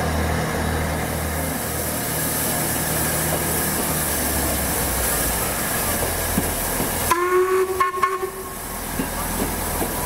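A train standing with a steady low rumble and hissing. About seven seconds in, it sounds one short single-note blast lasting about a second.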